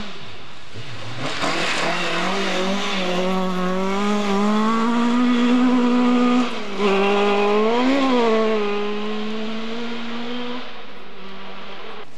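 Historic rally car engine passing at high revs on a gravel stage: the note builds and climbs as it comes on, cuts out briefly about six and a half seconds in, rises and falls quickly around eight seconds, then fades as the car goes away.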